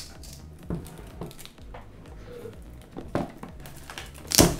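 Plastic shrink-wrap crinkling and rustling as it is handled and peeled off a smartphone box, in short scattered bursts, with one louder crinkle near the end.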